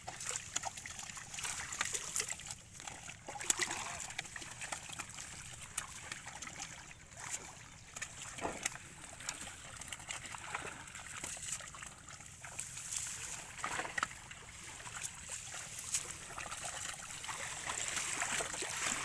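Pond water splashing and sloshing irregularly as people wade and grope for fish by hand, with scattered small splashes and trickling.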